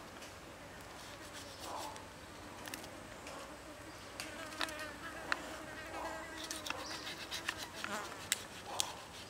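A fly buzzing, its pitch wavering, with scattered sharp clicks of a knife cutting grilled chicken on a wooden stick.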